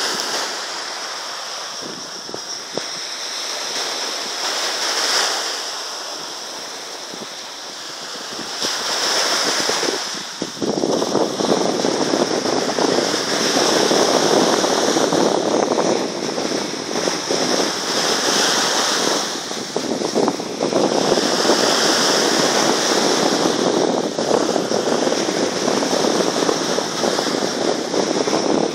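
Waves breaking and washing up a sandy shore, with wind. The surf gets much louder about ten seconds in and stays loud.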